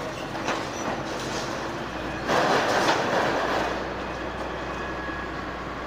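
A Hitachi hydraulic excavator demolishing a concrete building: its engine running under the crunching, scraping and knocking of broken concrete and rubble. A louder crash of falling debris comes a little past two seconds in.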